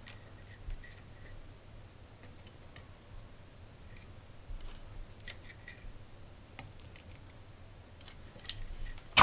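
Faint, scattered small clicks and ticks of hands handling thin wires on a workbench, over a steady low hum, with a sharper click right at the end.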